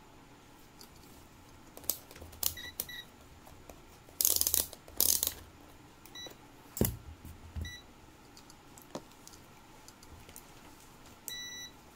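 Digital multimeter being handled and set up on a workbench: clicks and knocks, two short rustles in the middle, and several short electronic beeps, ending with a half-second beep near the end.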